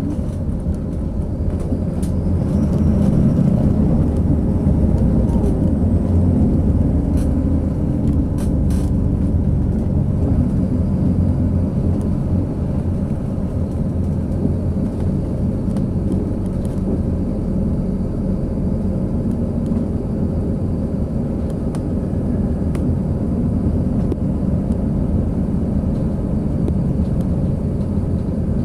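Inside the cabin of a moving coach: the steady low drone of its engine and road noise. It grows a little louder a few seconds in.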